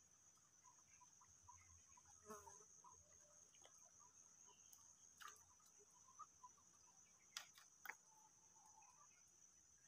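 Faint, steady, high-pitched insect chirring, with scattered small chirps and a few short sharp clicks about two, five and seven and a half seconds in.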